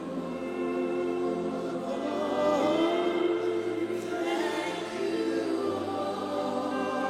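Gospel worship music: many voices singing together over held keyboard chords and a sustained bass line.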